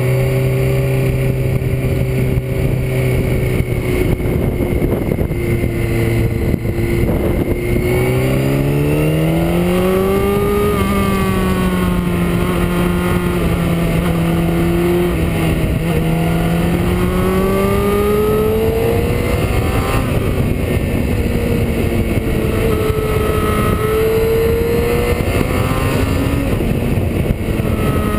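Motorcycle engine running under way, heard from the bike itself with steady wind noise over the microphone. Its pitch holds at first, climbs as the bike accelerates about a third of the way in, dips, and rises again past the halfway point.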